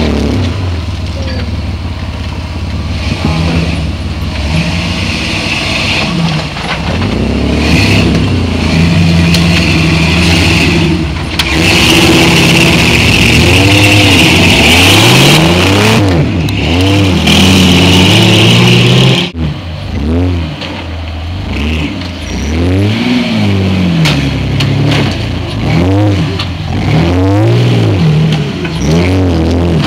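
Rock-crawler buggy engine revving up and down again and again under load as it crawls up a steep rocky slope, with quick throttle blips in the second half.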